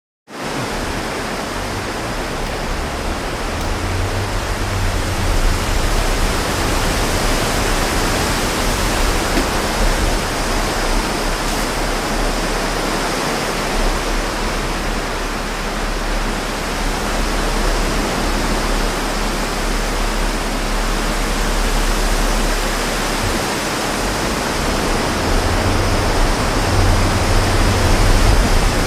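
Strong wind blowing straight onto the microphone: a steady rushing hiss over a heavy, uneven low rumble from the gusts buffeting it, a little louder near the end.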